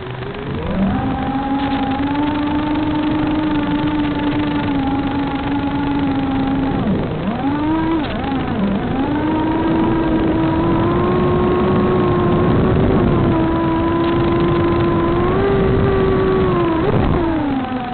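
Radio-controlled model aircraft's motor and propeller buzzing at a steady high pitch that shifts with the throttle. It dips and wobbles about seven to nine seconds in, climbs and holds, then drops near the end, over a rumble of strong wind on the microphone.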